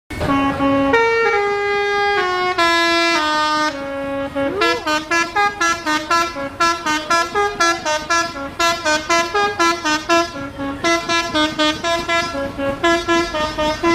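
Basuri musical bus horn (a 'telolet' horn) playing a melody in a slowed-down version. It starts with long held notes stepping down in pitch, then about four and a half seconds in breaks into a quick run of short, separate notes.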